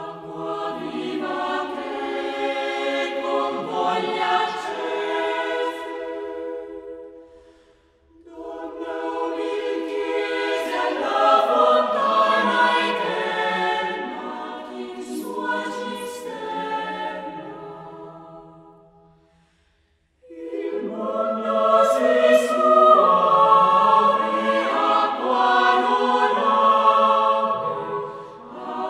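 Mixed choir singing a devotional lauda, in three long phrases with short breaks between them.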